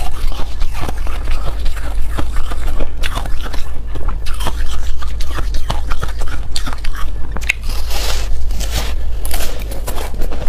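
Biting and chewing a block of frozen white ice: a dense run of loud, irregular crunches as the ice breaks between the teeth.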